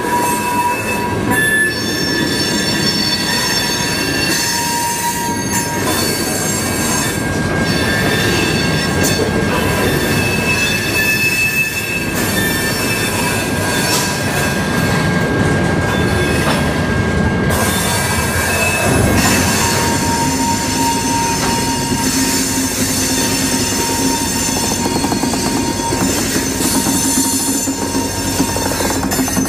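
Slow-moving freight train shoved by a diesel locomotive: car wheels squeal against the rails in several high, steady tones over the rumble of the cars rolling. About two-thirds of the way through, a lower steady hum joins in.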